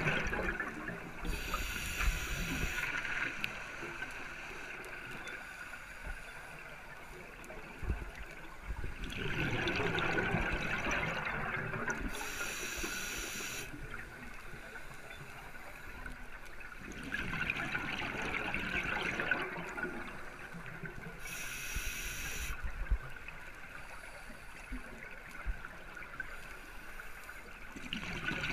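Scuba diver breathing through a regulator underwater: a short hiss on each inhale, then a longer bubbling rush of exhaled air. There are about three slow breaths.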